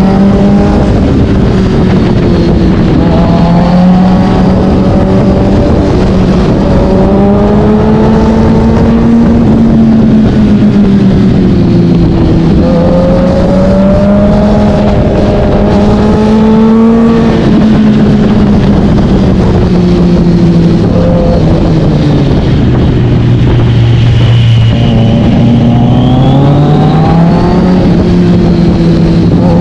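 2020 Kawasaki Z900's inline-four engine through an SC-Project S1 aftermarket silencer, heard from the rider's position, pulling through the gears and easing off, its pitch rising and falling again and again. It drops to its lowest pitch about 22 seconds in, then climbs again near the end.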